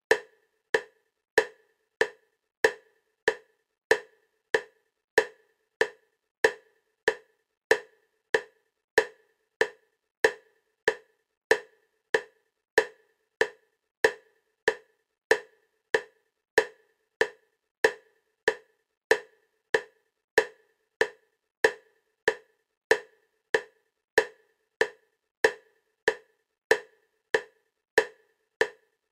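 EMDR bilateral stimulation clicks: a short, sharp click repeating steadily at 96 per minute (about one every 0.6 s), alternating side to side between the left and right ears.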